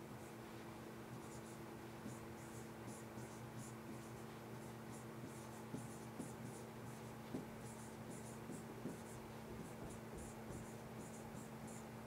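Faint scratching and light tapping of a stylus writing on a pen tablet in many short strokes, over a steady low hum.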